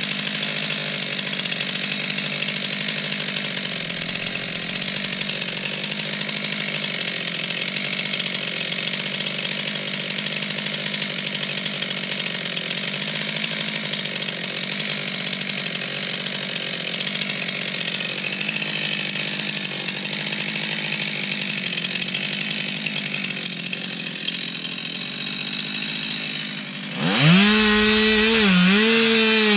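Stihl two-stroke chainsaw running at high throttle while cutting up a fallen tree, a steady high engine note. Near the end it gets louder and its pitch swoops up, dips and steadies as the throttle changes.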